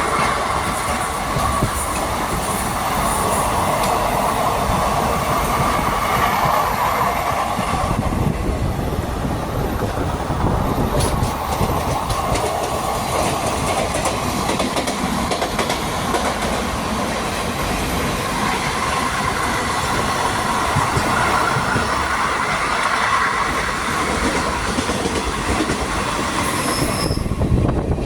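Express passenger train running at high speed on the rails: a steady rush of wheel and rail noise with a ringing tone that fades after about eight seconds and returns later.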